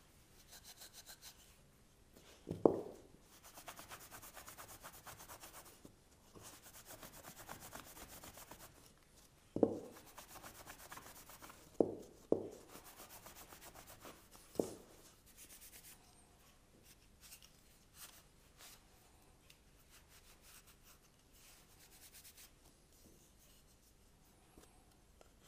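Cotton rag rubbing over an oiled wooden piece, a soft dry swishing as the excess Scandinavian oil is buffed off until it is no longer sticky. A few knocks of wood against the bench come through it, the loudest near the start, with the rubbing dying away in the second half.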